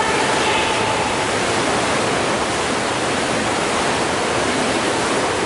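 Steady rush of churning, foaming water in an indoor paddling training tank, as paddles work the water alongside fixed boat rigs.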